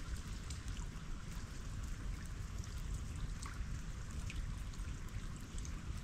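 Melting ice dripping and trickling into water: many small scattered drips and ticks over a steady low rumble.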